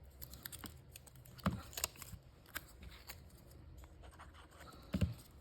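Small paper pieces being handled and pressed down onto a card on a work table: light rustles, scratches and scattered taps, with two louder knocks about a second and a half in and near the end.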